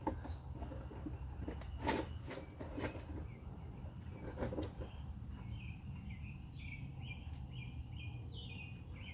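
A few scattered clicks and knocks, then a small bird singing a quick run of short chirps from about five seconds in, over a steady low rumble.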